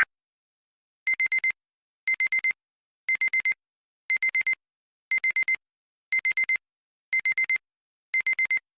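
Electronic beeping: eight groups of four quick pips at one high pitch, one group per second.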